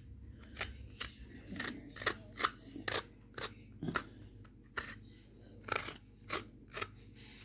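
Small knife scraping the skin off a tinda (apple gourd) by hand: short scraping strokes, about two a second.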